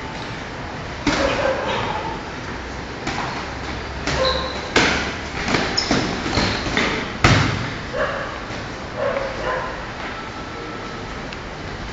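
Boxing gloves landing on a sparring partner as dull thuds. The sharpest hits come about 5 and 7 seconds in, among short, sharp bark-like voice sounds and a few brief high squeaks.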